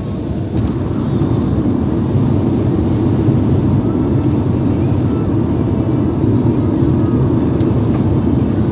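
Steady road and wind noise inside a moving car's cabin at highway speed, growing a little louder in the first two seconds.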